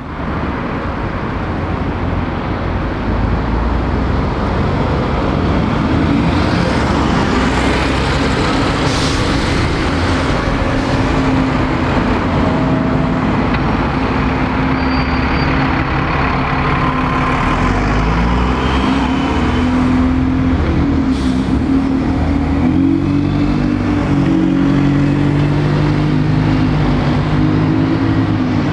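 Diesel buses running in city-street traffic, a steady engine hum whose pitch wavers as they move off and pass. Brief air hisses come at about 9 and 21 seconds, typical of bus air brakes.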